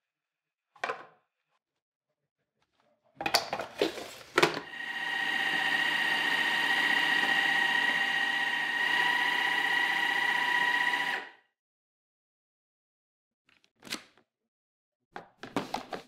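Dyson V15s Detect Submarine cordless vacuum with its wet roller head running: a steady high whine that starts about four and a half seconds in and cuts off sharply about seven seconds later. A few plastic clicks and knocks come before it starts and again near the end.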